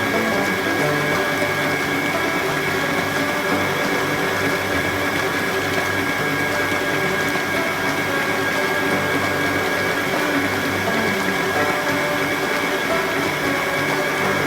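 Electric kitchen mixer running steadily, mixing pancake batter, with a constant high motor whine.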